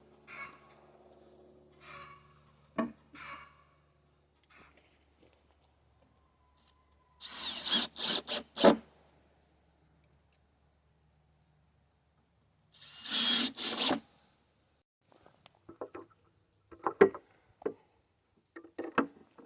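Two short bursts of power-tool work on wood, about a second and a half each, with scattered knocks and clicks between them. A steady high insect buzz runs underneath.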